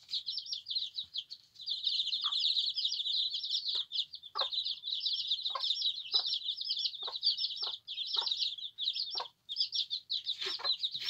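A brood of newly hatched chicks peeping without pause, high-pitched, while a mother hen gives short, low clucks about a dozen times.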